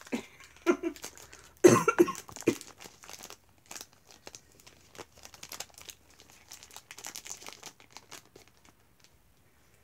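Paper and plastic packaging rustling and crinkling as items are handled in a box, with a short cough about two seconds in, the loudest sound.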